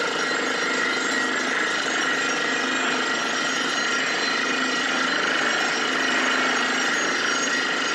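Truck-mounted borewell drilling rig running as it bores into the ground, a loud, steady mechanical din.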